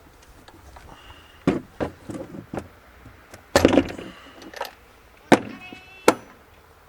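A series of irregular knocks and clatters, about half a dozen, the loudest a short rattling cluster about halfway through, with a brief squeak near the end.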